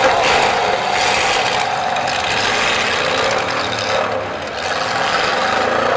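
Several demolition derby cars' engines running and revving together as the cars shove each other in the dirt, a loud rough rasping din with a pitch that wavers.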